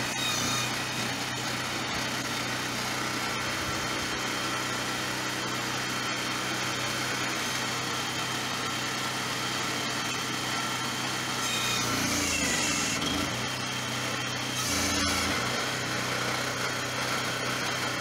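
Small engine of a homemade hydraulic backhoe digger running steadily. Its note shifts briefly twice in the second half, as the digger arm is worked.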